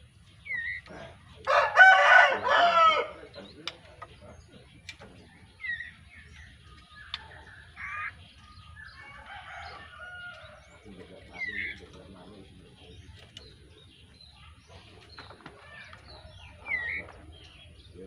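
A rooster crows once, loudly, for over a second, starting about a second and a half in. Besides this, a young caged white-rumped shama gives short single whistled notes, four or so spaced several seconds apart.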